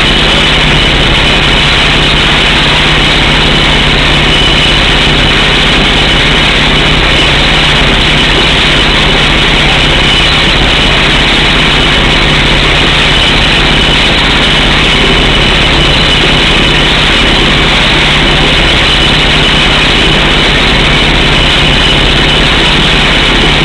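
Air hammer on a truck-mounted drill rig boring through solid rock: a loud, steady, unbroken din of rapid hammering and rushing air, with the truck's engine running under it.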